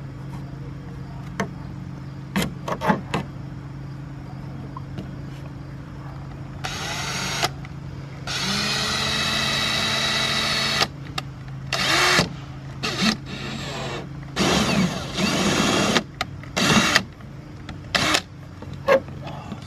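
A power drill driving screws into a car's side skirt in a series of runs: a short one about seven seconds in, a longer run of two to three seconds, then several short bursts with the motor speeding up and slowing down. A few light clicks come before it, over a steady low hum.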